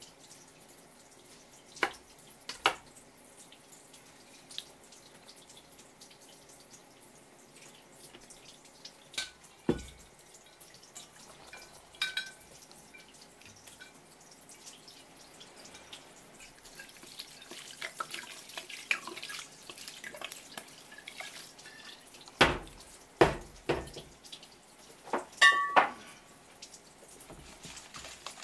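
Scattered drips and small clicks from a stainless steel bowl of cut raw crab. Near the end come a few louder knocks against the bowl, one of which leaves it briefly ringing.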